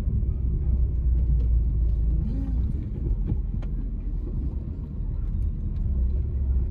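Steady low rumble of a car driving slowly in traffic, heard from inside the cabin.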